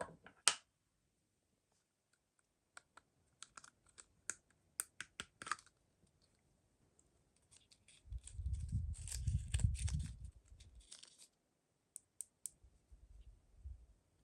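Hands opening mystery-toy packaging close to the microphone: a run of light plastic clicks and taps, then a few seconds of crinkling and rustling with low handling bumps, and a few more clicks near the end.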